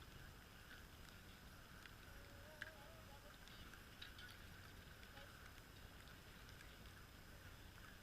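Near silence: faint outdoor background with a few soft ticks and one sharper click about two and a half seconds in.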